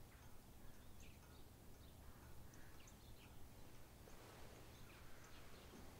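Near silence: faint background ambience with a few faint, brief high chirps scattered through it.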